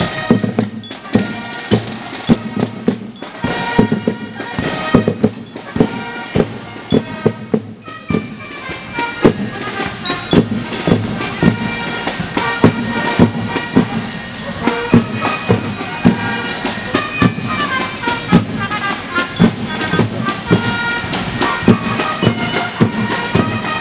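A marching band plays a march, with brass over a steady drumbeat of about two strokes a second. About a third of the way in, a new brass melody takes over.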